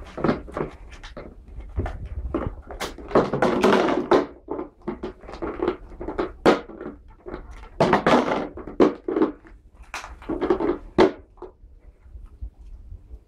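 A dog panting in quick, irregular breaths, with knocks and rustles as it moves about; it quietens near the end.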